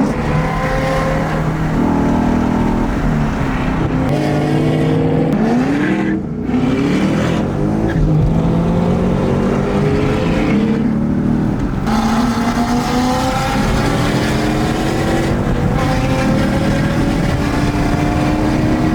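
V8 Mustang engine under hard acceleration, pulling up through the revs and dropping back at each upshift, with two clear shifts about 6 and 12 seconds in.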